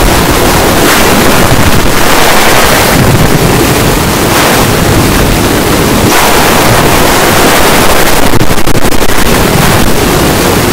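Extremely loud, harsh, distorted noise that fills the whole range from deep rumble to hiss, going on without a break and swelling slightly about eight seconds in.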